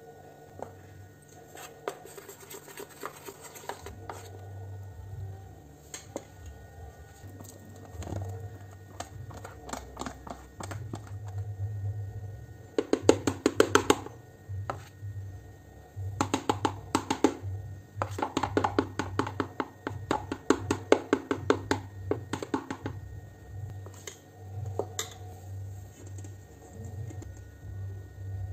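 A metal spoon clinking and scraping rapidly against a stainless steel bowl as sponge-cake batter is stirred and scraped out, in quick runs of clicks that come thickest around the middle.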